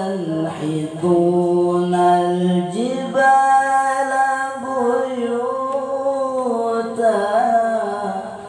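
A teenage boy's melodic Quran recitation (tilawah) in the competition mujawwad style, sung into a handheld microphone. Long held, ornamented notes step up to a higher sustained note about three seconds in, and the phrase breaks off near the end.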